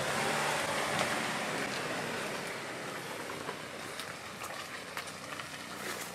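Land Rover Defender 90 P300's 2.0-litre four-cylinder petrol engine running low under the crackle of its tyres rolling over mud, leaves and twigs at crawling speed, with scattered snaps, slowly fading as the vehicle moves away.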